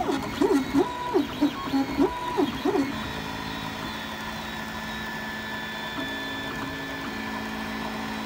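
MakerBot 3D printer's stepper motors whining as the print head moves back and forth printing a part: a quick run of rising and falling whines, about three a second, for the first three seconds, then a steady hum.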